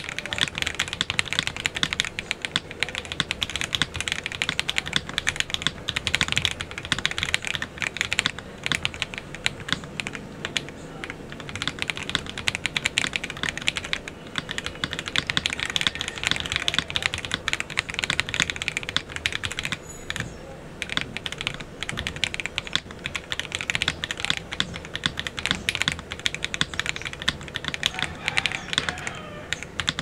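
Fast, continuous typing on a mechanical keyboard with lubed Akko Cream Yellow V3 linear switches, a polycarbonate case and plate, a tape mod and silicone dampening. The keystrokes come in a dense stream, with a short let-up about two-thirds of the way through.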